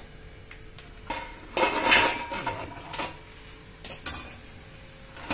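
Metal kitchenware clattering as fried cutlets are tipped from a wire-mesh frying strainer onto a stainless steel plate: a dense rattle loudest about two seconds in, then a few lighter clinks.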